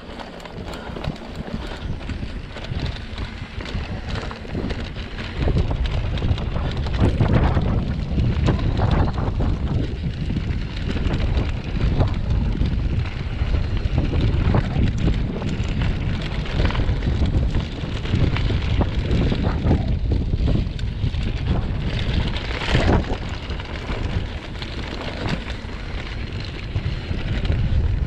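Wind buffeting the camera's microphone on a mountain-bike descent, mixed with tyres rolling over loose dirt and the bike's clicks and rattles over bumps. It gets louder about five seconds in as the speed picks up.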